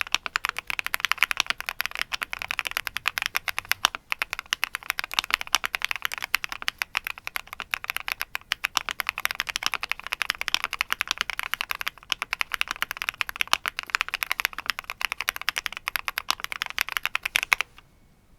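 Fast, continuous typing on a Qwertykeys QK75 custom mechanical keyboard, its keys clacking in quick succession, stopping abruptly near the end.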